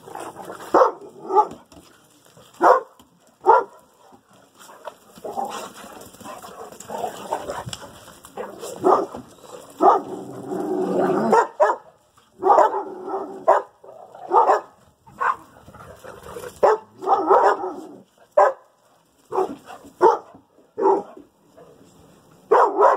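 Dogs play-fighting, barking in many short, sharp barks at an irregular pace, with a denser, rougher stretch of noise in the middle.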